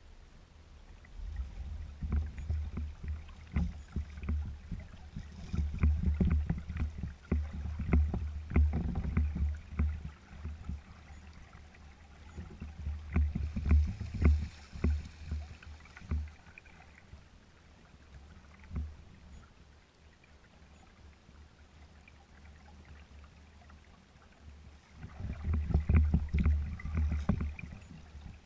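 Wind buffeting the microphone in gusts, with small waves slapping and splashing against a kayak's hull as it sails slowly; a quieter lull comes in the middle, with a last strong gust near the end.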